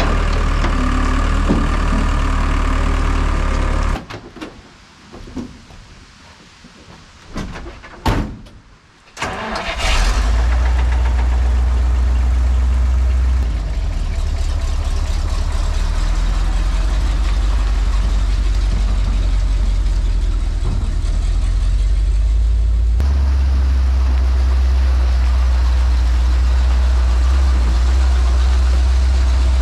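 Skid-steer loader engine running, cut off suddenly about four seconds in. After a quieter stretch with a sharp click, an old Ford dump truck's engine comes in suddenly about ten seconds in and runs steadily for the rest of the time.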